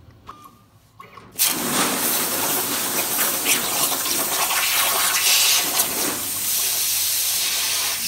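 Plasma cutter torch firing on a CNC table: after a near-quiet second and a half, the arc starts suddenly and runs as a loud, steady hiss while cutting a small circle in 16-gauge sheet steel.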